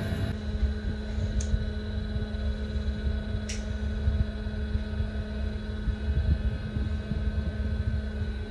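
Air-filtration and ventilation fan of a small enclosed smoking room running with a steady hum. A faint tick comes about a second and a half in and another about two seconds later.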